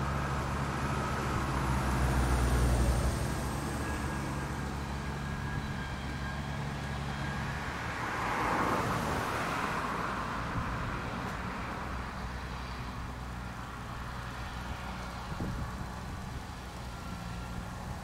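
Grimme Tectron self-propelled potato harvester running steadily as it lifts a row of potatoes, its diesel engine a low hum that is loudest early on and fades after about eight seconds. A broad rush of noise follows it around then.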